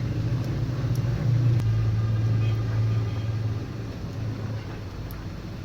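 A motor vehicle's engine with a low, steady drone that swells about a second in and fades away after about three and a half seconds.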